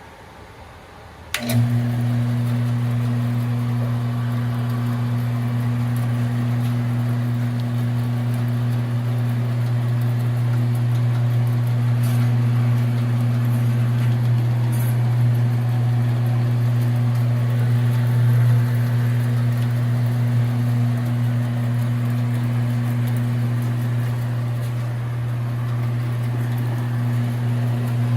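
Jet HVBS-712 horizontal/vertical metal-cutting bandsaw switched on about a second in, then running steadily with an even motor hum.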